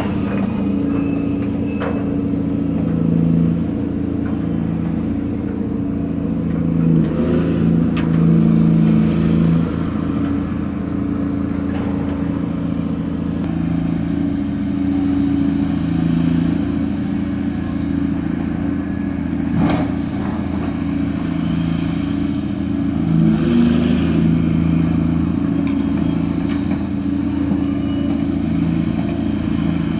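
Diesel machinery of a gut ship's grab crane running during cargo handling. Its pitch steps up and down every few seconds as the load changes, with a few sharp knocks.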